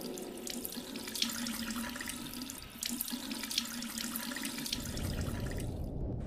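Water running from a tap into a bathroom sink, with splashing and dripping as water is splashed on the face. A low hum comes in near the end.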